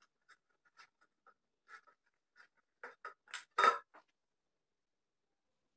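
Soft squishing and patting of stiff jowar-flour dough being kneaded by hand in a steel bowl: scattered faint sounds, with a short run of louder pats a little past halfway.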